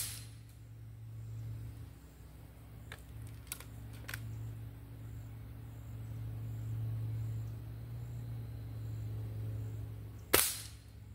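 Gamo Swarm Whisper .22 break-barrel air rifle firing two pellet shots, a sharp crack right at the start and another about ten seconds later. A few faint clicks come between the shots.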